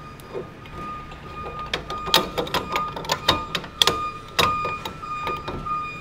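A portafilter (group handle) is being forced round in a La Marzocco espresso machine's group head, giving a string of sharp metallic clicks and knocks, spread irregularly through the middle seconds. The handle and shower screen are pressing a new rubber group seal up into place. A faint steady high tone runs underneath.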